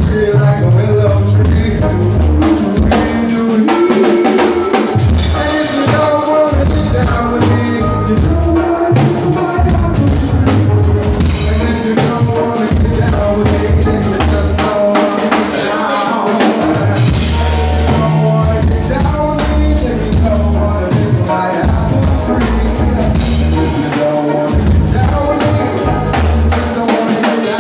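Live band playing: a drum kit with kick, snare and rimshots over keyboards, with a singer at the microphone.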